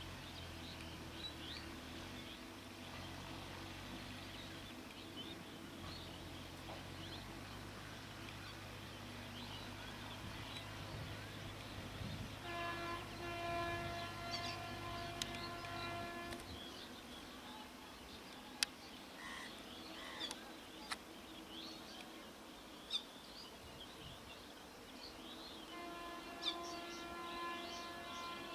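Distant WAG-7 electric locomotive and its freight wagons rumbling away, the low rumble dying out a little past halfway. The train horn sounds for about three seconds around the middle and again near the end. Birds chirp throughout.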